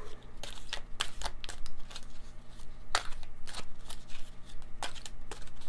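A deck of Numerology Guidance oracle cards being shuffled by hand: a run of quick, irregular card snaps and slaps.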